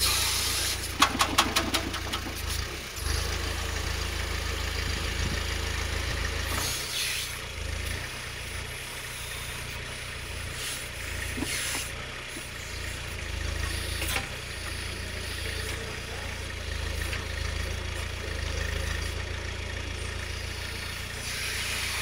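Small 4x4 tractor's engine running steadily as it powers a rear hydraulic backhoe digging soil. A quick clatter comes about a second in, and the bucket scrapes through earth and stones a few times.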